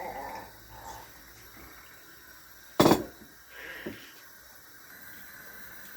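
Quiet kitchen handling sounds with one sharp knock of kitchenware about three seconds in.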